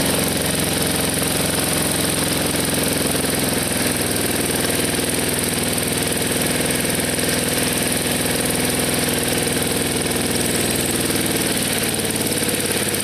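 Junk push lawn mower's small engine running steadily, with a slight change in its note about four seconds in.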